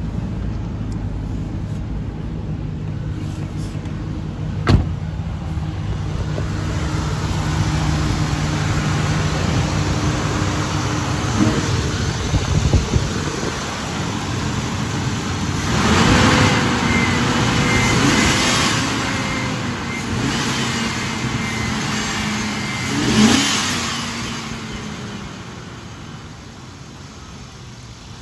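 A 5.3-litre V8 engine running steadily. There is one sharp click about five seconds in and two louder swells around the middle.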